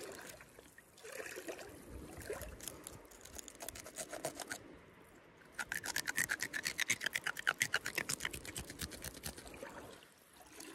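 Serrated folding knife sawing into a freshly caught fish at the gills: a rasping scrape, faint at first, then a fast, even run of back-and-forth strokes, several a second, through the second half.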